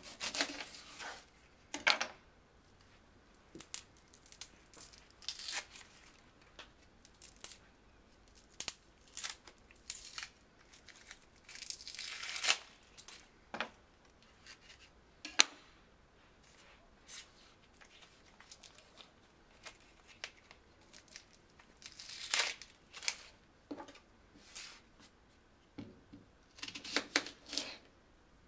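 Dry, papery onion skin being peeled and torn off with a small knife, in irregular crackling rips, with one sharp click a little past halfway.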